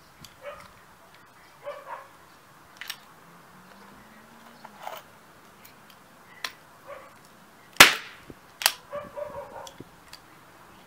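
Ramset 7200 powder-actuated tool firing a caseless nitrocellulose power pellet, a single sharp bang about eight seconds in as it drives a fastener through wood into concrete, followed under a second later by a smaller crack. A dog barks now and then in the background.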